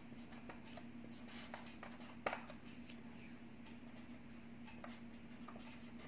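Marker pen writing on a whiteboard: faint short scratching strokes, with a single sharp tap about two seconds in, over a steady low hum.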